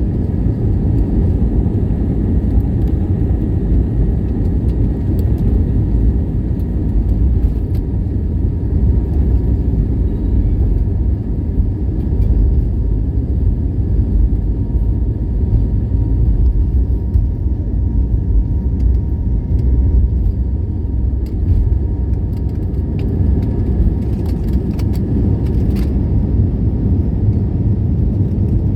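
Airbus A320neo (A320-251N, CFM LEAP-1A engines) heard from the cabin: a steady low rumble of engines and airflow, with faint steady hums above it.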